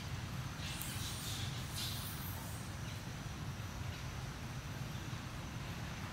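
Outdoor ambience: a steady low rumble, with two brief high-pitched rustling sounds about one and two seconds in.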